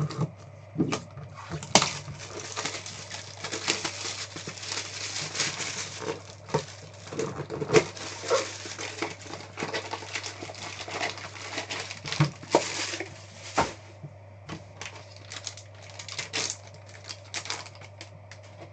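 A sealed trading-card hobby box being opened by hand: cardboard and plastic shrink wrap crinkling and rustling with many sharp clicks and taps, dense through the middle and thinning to scattered taps in the last few seconds.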